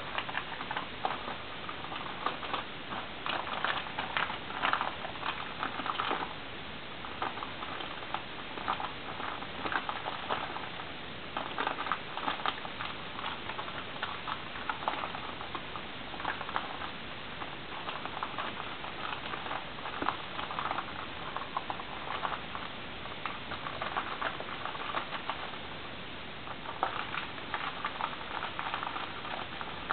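A cat licking its fur while grooming: bursts of quick, soft, wet clicks that come and go every second or two, over a steady hiss.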